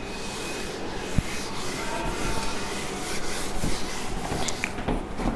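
Whiteboard duster rubbing quickly back and forth across a whiteboard, erasing marker writing, with a single short knock about a second in.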